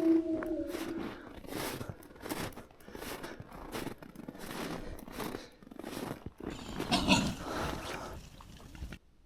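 Footsteps at a steady walking pace, about one and a half steps a second, with a louder sudden sound about seven seconds in.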